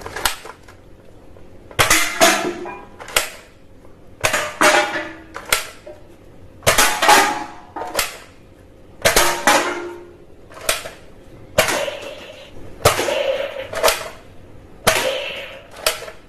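Toy blaster guns being test-fired: a string of sharp pops and clacks, a single shot or a short quick cluster about every second.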